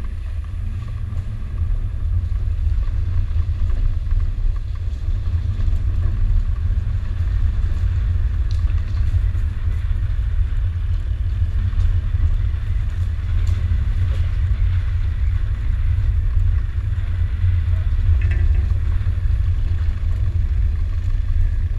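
Land Rover Discovery 2's V8 engine and drivetrain heard while the truck crawls along an off-road trail, a steady low rumble.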